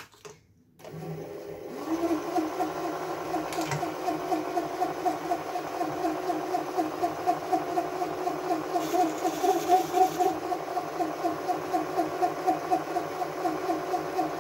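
Small benchtop metal lathe switched on with a click, its motor spinning up within about a second and then running steadily with a hum and a fast regular flutter. A brief hiss comes about nine seconds in.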